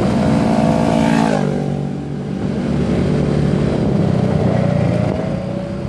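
Motorcycle engine running as the bike slows down; its pitch drops about a second and a half in, then it runs steadily at lower revs.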